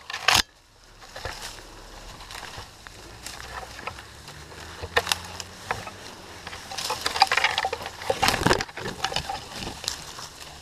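Dry oak leaves and twigs rustling and brushing against a tree climber and his helmet camera as he lowers himself on a rope through the branches: scattered clicks and rustles, loudest just after the start and busiest about two thirds of the way in.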